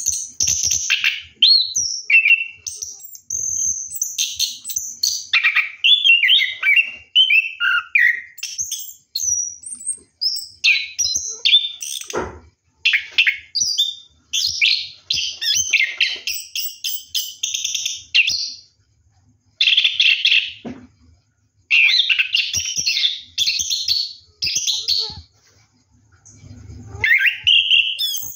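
Chestnut-capped thrush (anis kembang) singing a fast, varied rolling song of chirped and whistled phrases, delivered in bursts with brief pauses.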